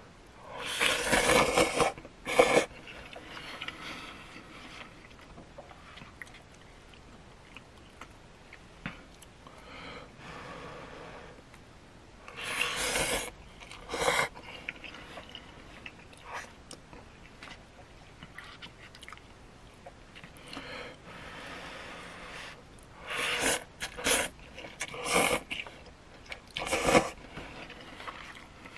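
A person slurping instant ramen noodles from a cup, with quieter chewing between slurps: a long slurp about a second in, another about halfway, and a run of shorter slurps near the end.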